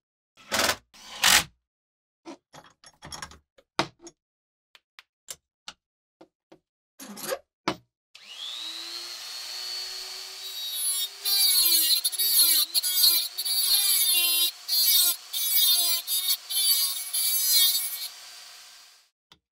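A few sharp knocks and clicks of metal parts being handled on a bench vise, then about 8 s in a handheld rotary tool with an abrasive cut-off wheel spins up to a high whine. It cuts a slot into the knife's steel tang, its pitch dipping each time the wheel bites, with short breaks, until it winds down near the end.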